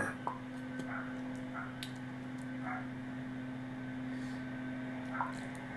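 Steady electrical hum picked up through a doorbell camera's microphone, with a few faint taps.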